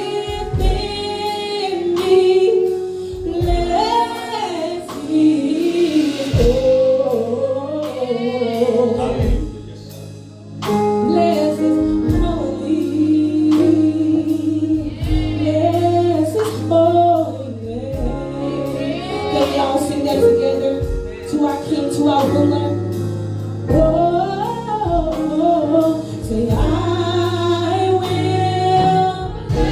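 Gospel music: singers and a choir singing with a live band, steady bass notes underneath and regular drum hits.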